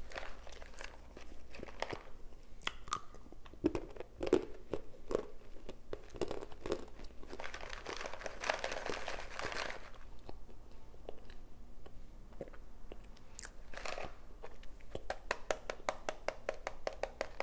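Close-up crunching as a person bites and chews hard, dry chunks of arrowroot starch: irregular crisp crunches, then a fast run of chewing crunches near the end. A few seconds of rustling come about halfway through.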